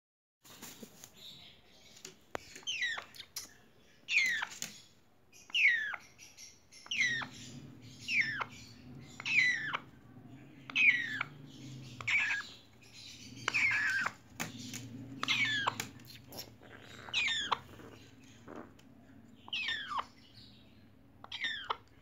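Congo African grey parrot chicks calling: about a dozen short calls, each falling quickly in pitch, repeated roughly every second and a half.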